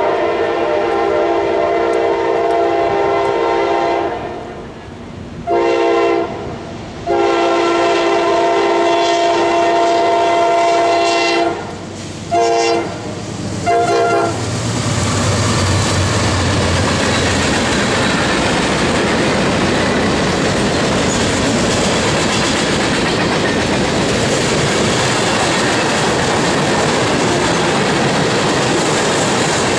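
A CSX freight locomotive's multi-chime air horn sounds a sequence of long and short blasts as the train approaches. It then passes with a low engine rumble, followed by the steady rolling rumble and clickety-clack of tank cars going by.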